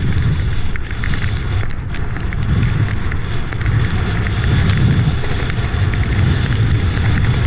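Wind buffeting a wing foiler's action-camera microphone, a steady low rumble that swells and eases, over the hiss of choppy water rushing past the board, with scattered small ticks.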